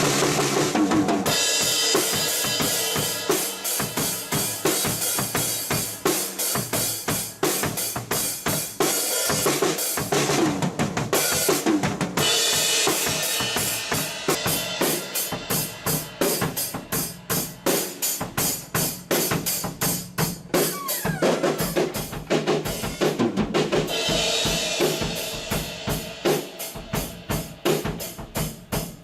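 Acoustic drum kit played at a steady groove: kick, snare and rimshot strokes, with stretches of ringing cymbal wash that drop out and come back twice.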